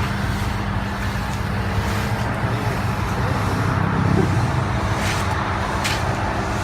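Feed and fertilizer mixer running steadily, its motor humming as it churns a mixed batch of fish meal, ground cassava and rice bran. Two short sharp sounds come about five and six seconds in.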